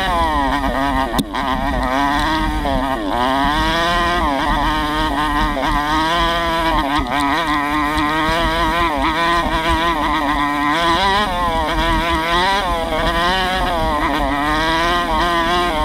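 Single-cylinder 125cc four-stroke dirt bike engine under way, revving up and down over and over as the throttle is worked, its pitch swinging every second or two. There is a brief sharp knock about a second in.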